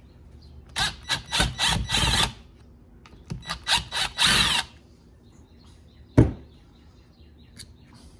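Power screwdriver backing out the small screws on a chainsaw's carburetor plate: two runs of about a second and a half each, stuttering as the trigger is pulsed. A single sharp knock follows about six seconds in.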